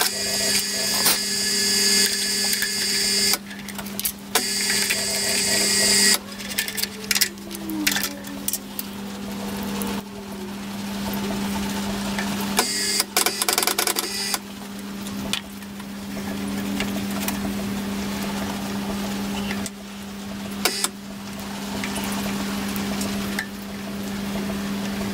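Milling machine running with a steady hum while the drill bit cuts into a small steel bracket for the first few seconds. After that come scattered metal clinks and knocks as the part is handled in the vise.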